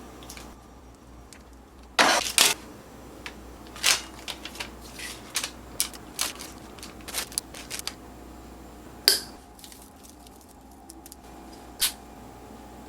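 Kitchen handling sounds while sliced cheese is prepared: a burst of sharp crinkling clicks about two seconds in, then scattered light taps and ticks. Near the end a steady hum of several tones starts up, fitting a microwave oven running.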